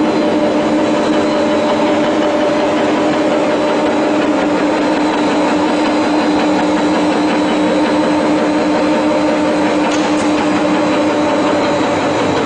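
Fish feed production line machinery running: motors and processing machines give a loud, steady hum with several held tones.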